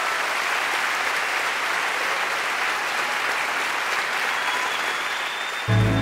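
Large audience applauding steadily. Near the end, music comes in.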